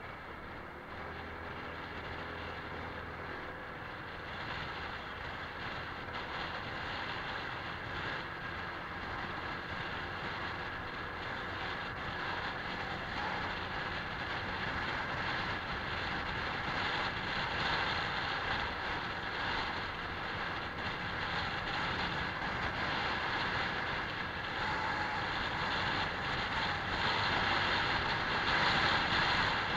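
Honda PCX scooter on the move: engine and road noise mixed with wind rushing over the microphone, growing gradually louder.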